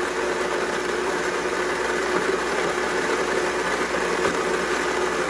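Electric blender motor running steadily, puréeing raisins with juice into a thick paste.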